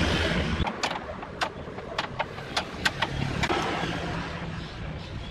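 Short, sharp metal clicks at irregular intervals as a spanner works the bolts that hold a plastic planter mold together. A low rumble runs underneath for the first half second and then cuts off.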